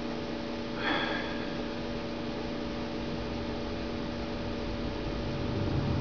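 Steady electrical mains hum and hiss of the recording's noise floor, with a short breathy noise about a second in.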